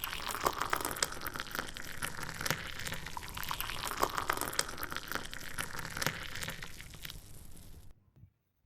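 Paneer tikka pieces frying in hot oil in a pan: a steady sizzle full of small crackles and pops. It cuts off suddenly near the end.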